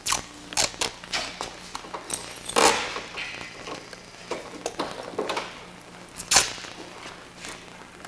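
Irregular clicks, knocks and short scrapes of hand work with clamps and tools along an aircraft wing's trailing edge, with a longer scraping rustle about two and a half seconds in and a sharp knock a little after six seconds.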